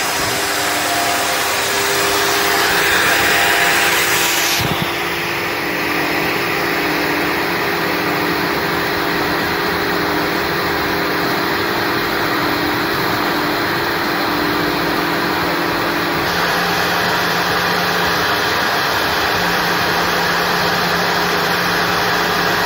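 Table saw motor running steadily with a disc of 180 gsm paper fitted in place of the saw blade, as a strip of duplex cardboard about 2 mm thick is pushed into the spinning paper. The sound changes abruptly about 5 seconds in.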